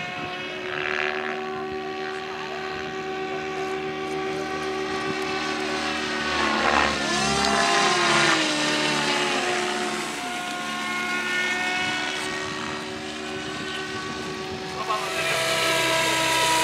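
Radio-controlled model aircraft motors whining steadily, several even pitches at once. About seven seconds in a model passes louder and its pitch drops as it goes by. Near the end a radio-controlled model helicopter is heard, its rotor adding a brighter hiss.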